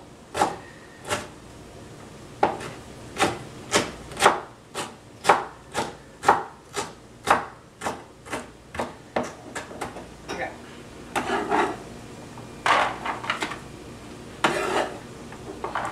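Cleaver chopping celery into dice on a wooden cutting board, about two sharp chops a second. In the last few seconds the blade scrapes and slides across the board, gathering up the diced celery.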